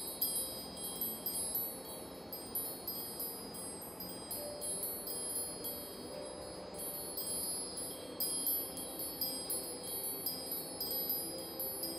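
Wind chimes ringing continuously, with many bright, high notes struck over and over and overlapping, and softer lower tones ringing beneath them.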